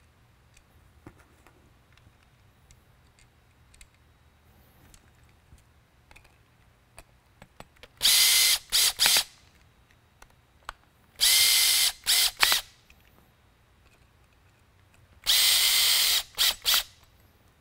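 Cordless drill/driver driving screws back into the metal housing of a PAR-36 LED spotlight, drawing the lens and gasket tight. It runs three times, each run about a second long and followed by two short trigger taps to seat the screw, with faint handling clicks before the first.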